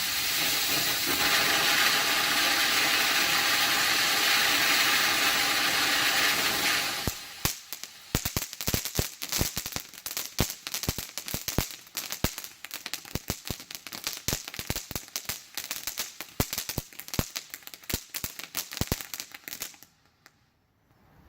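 TNT Pistol Pete fountain firework spraying sparks with a steady loud hiss for about seven seconds, then turning to a rapid, irregular crackling of pops that thins out and stops shortly before the end.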